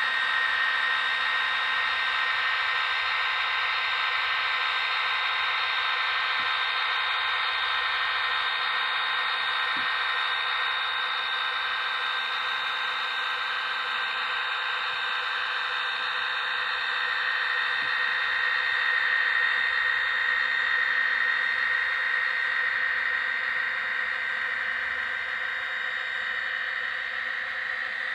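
Model train running past on layout track: a steady whir from the model diesel locomotive's electric motor and the rolling of the hopper cars' wheels, with a steady high whine and a few faint clicks.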